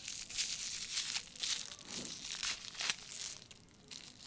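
Aluminium foil wrapper crinkling in quick, irregular crackles as hands unfold and open a small foil packet, easing off near the end.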